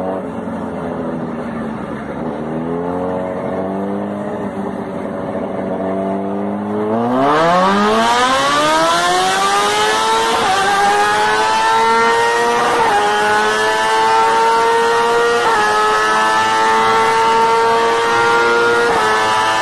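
An engine revving: its pitch climbs slowly at first, then about seven seconds in it sweeps steeply up to high revs. It holds there with small jumps in pitch every two or three seconds.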